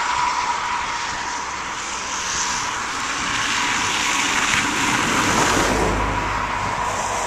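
A box truck driving past close by on a snow-covered road, its tyres and engine swelling to a low rumble about five seconds in and then fading. Heavy wind buffets the microphone throughout.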